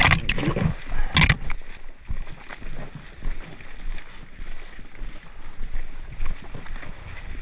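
Rustling, bumping movement noise on a body-worn action camera as a player moves off on foot. There are a few loud short noises in the first second and a half, then an uneven low rumble.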